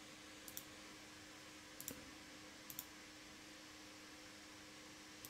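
Three faint computer mouse clicks, each a quick press and release, spread over a few seconds against a low steady hum.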